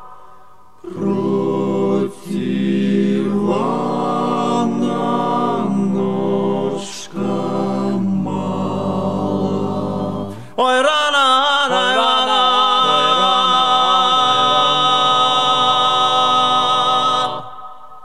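Folk song sung by a vocal group in close harmony, held chords with short breaths between phrases. About ten seconds in, a high solo line with wide vibrato rises over a sustained chord.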